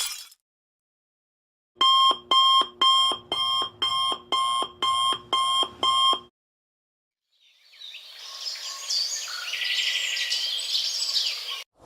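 Alarm clock beeping: about ten short electronic beeps in a quick, even rhythm, then it stops. After a pause, a fainter, hissy sound effect with chirping in it fades in and runs for about four seconds.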